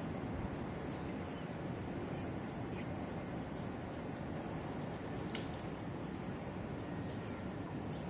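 Steady low rumble of outdoor background noise, with a few brief, high, falling bird calls about halfway through.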